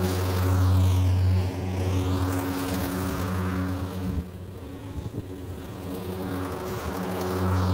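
Hart 40V 20-inch battery-powered lawn mower running as it cuts grass: a steady electric motor and blade hum. It is loudest at first, fades as the mower moves away around the middle, and grows louder again near the end as it comes back.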